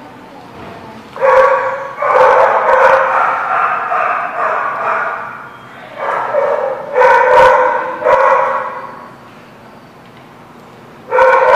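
Small dogs barking in rough play. A run of barks lasts a few seconds, then comes in short bursts. After a brief pause the barking starts again near the end.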